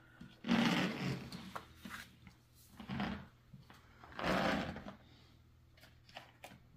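A plastic crayon case and a sheet of paper being handled and moved on a table: three short bursts of rubbing and scraping.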